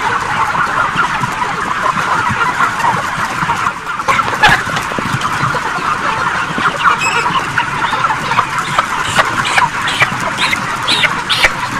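Steady chatter of a shed full of broiler chickens, many birds peeping and clucking at once. From about four seconds in, brief rustles and knocks come through as a bird is grabbed and lifted.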